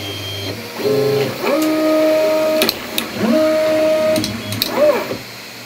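Anet A8 3D printer's stepper motors whining as the print head and bed move to park after the print: several pitched tones, each rising as the motor speeds up, holding for about a second, then cutting off, with a few sharp clicks between them.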